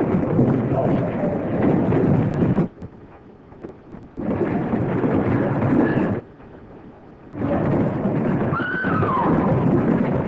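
Saloon brawl commotion: a crowd of men shouting and scuffling in a dense, rumbling din, with one voice yelling out near the end. It comes in three loud stretches that cut off abruptly twice, on a muffled early-1930s film soundtrack.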